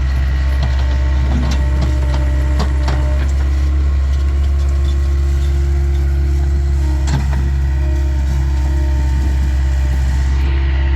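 Takeuchi TL26 skid steer's diesel engine running steadily, with scattered sharp clanks and knocks over it.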